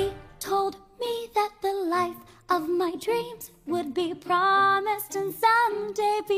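Song with a voice singing short, clipped phrases separated by brief gaps, over light musical backing.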